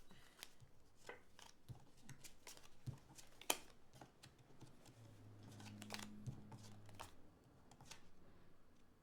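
Faint scattered clicks and taps of Uno cards being handled and laid down, with one sharper click about three and a half seconds in. A low hum runs underneath for a couple of seconds after the middle.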